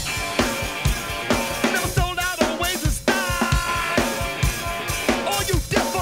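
Rock music with a busy drum kit.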